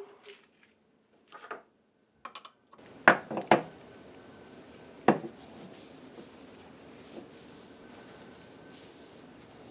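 A few sharp metal clanks and knocks from parts or tools being handled at the milling machine: three close together about three seconds in and a single one about five seconds in, with light rubbing and scraping in between.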